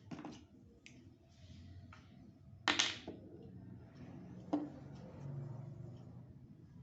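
Quiet handling sounds of painting at a desk: soft taps and scrapes, with a louder brief brushing swish about three seconds in and a smaller one a little later.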